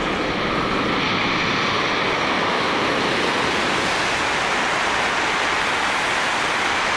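Shinkansen bullet train passing through a station at about 320 km/h without stopping: a loud, steady rushing roar of air and wheels that swells slightly about half a second in and then holds.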